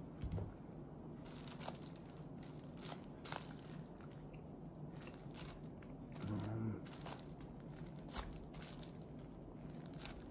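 Crinkling and crackling of the plastic wrapping on packaged rice balls as they are handled, in short irregular crackles.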